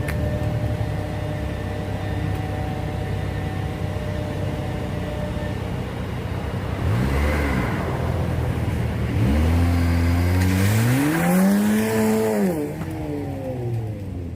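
Car engine idling with a steady low hum, revved briefly about seven seconds in and again a couple of seconds later in a longer rev that climbs, holds and falls back to idle.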